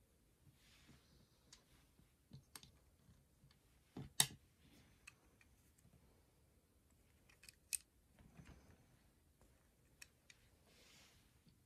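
Plastic Lego bricks clicking and tapping as they are handled and pressed together, with the sharpest snap about four seconds in and another a few seconds later. Soft rubbing of fingers on the plastic in between.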